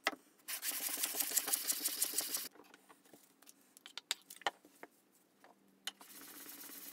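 A vintage Anchor hand plane's cast-iron sole scraped back and forth on sandpaper for about two seconds, lapping it flat. Then a few scattered clicks and taps, and near the end a sharpening stone rasping steadily over the steel plane iron.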